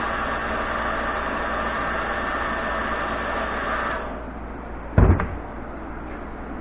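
Heat gun blowing steadily as it heats the plastic shop vac wheel, switched off about four seconds in; about a second later comes a single sharp knock.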